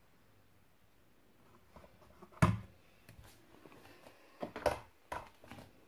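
Thumps and knocks of bare feet stepping onto a glass bathroom scale on a wooden floor: one loud thump about two and a half seconds in, then a quick run of shorter knocks near the end.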